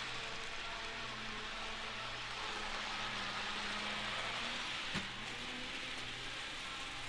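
Electric model train running along its track with a steady motor hum, and one sharp click about five seconds in.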